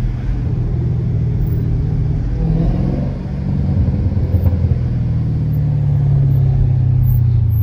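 Dodge Challenger Scat Pack Shaker's 392 Hemi V8 rumbling at low speed in traffic, heard from inside the cabin. The low engine note dips briefly about three seconds in and swells again near the end.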